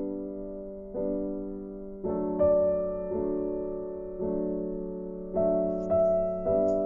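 Background music: a slow piano melody with sustained chords, a new note or chord about every second.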